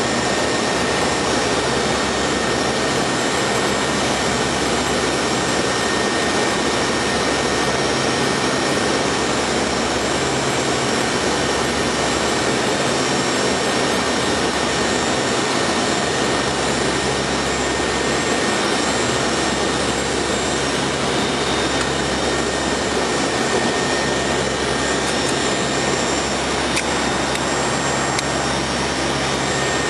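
Steady drone of a P-3 Orion's four Allison T56 turboprop engines heard inside the cockpit, with a thin steady whine over a constant rushing hiss.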